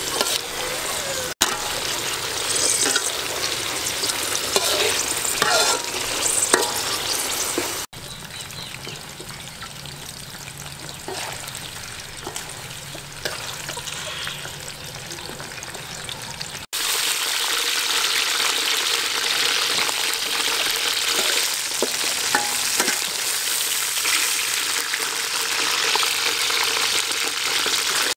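Hot oil sizzling in a metal wok as fried spiders are stirred and turned with a metal slotted ladle, with scattered clinks and scrapes of the ladle on the wok. It is quieter for several seconds in the middle, then the sizzling is louder again near the end.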